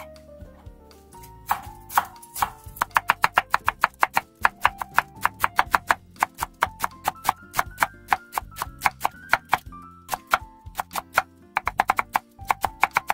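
Kitchen knife on a wooden cutting board, finely shredding cabbage in quick, even strokes of about five a second that start about a second and a half in, with a few short pauses. Before that, soft cuts through cherry tomatoes.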